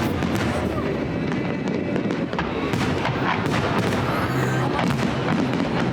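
Fireworks display: aerial shells bursting in a dense, continuous run of bangs and crackles.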